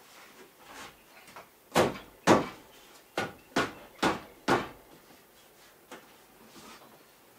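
Sharp knocks of a tool striking the cabin's wooden post and beam: two loud blows about two seconds in, then four quicker ones at roughly two a second.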